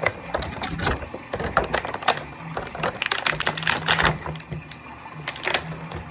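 Scissors snipping and clear plastic action-figure packaging crinkling, in irregular runs of quick clicks and crackles that are busiest about three to four seconds in.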